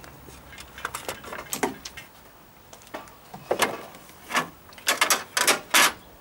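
Irregular clicks, knocks and light rattles from handling parts in an open car engine bay, with the loudest cluster of knocks about five seconds in.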